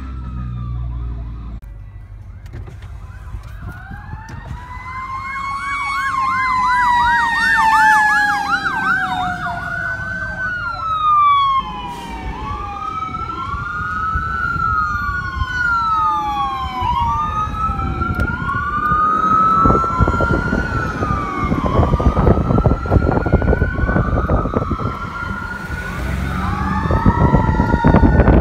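Emergency sirens on fire-rescue vehicles responding. A fast yelp sounds alongside slower falling sweeps, then gives way to long rising-and-falling wails, with a low rumble underneath that grows louder in the second half.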